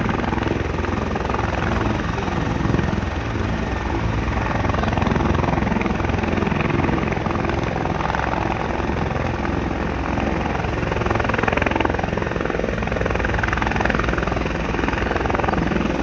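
Firefighting helicopter hovering low over the lake with its rotor and engine running steadily while it refills through a snorkel dipped in the water. The rotor downwash throws up spray.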